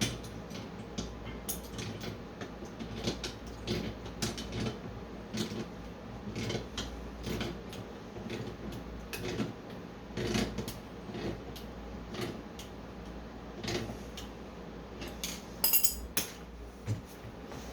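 Irregular metal clinks and knocks of bolts, washers and tools being handled while a garden cart is put together, with a brief louder metallic rattle near the end.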